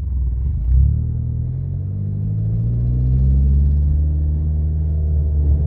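Dodge Neon SRT-4's turbocharged 2.4 L four-cylinder engine pulling away slowly in first gear. There is a thump about a second in, then the revs rise for a couple of seconds and hold steady. The car is in the 1500–3000 RPM range where its top-end tick shows, which the owner suspects comes from the lash adjusters.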